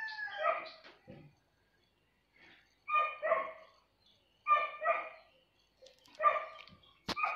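A dog barking, short barks in pairs, three times about a second and a half apart.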